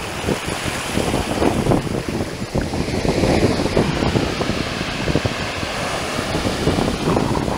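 Waves breaking and washing in over a black-sand beach, a steady rushing hiss of surf, mixed with heavy wind buffeting on the microphone.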